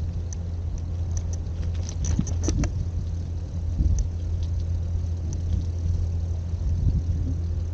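A car running: a steady low rumble, with scattered light ticks, most of them around two seconds in.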